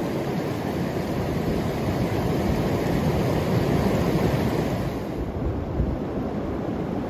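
Fast, muddy river water rushing over sandstone ledges and rocks: a steady, even rush, with some wind buffeting the microphone. The higher hiss of the water thins out about five seconds in.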